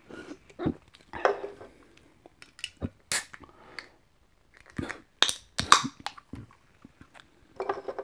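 Swallowing gulps of McCol barley soda from a can. Then metal clicks and a couple of sharp cracks, about five seconds in, as the ring-pull of a new aluminium can is opened.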